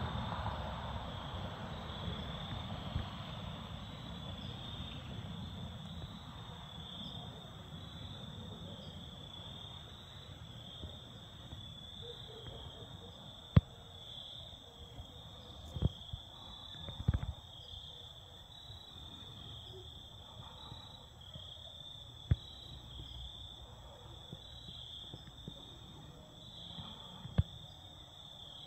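Insects chirping in a steady, pulsing high trill, with the distant low rumble of a Falcon 9 rocket launch fading away over the first ten seconds or so. A few sharp clicks stand out along the way.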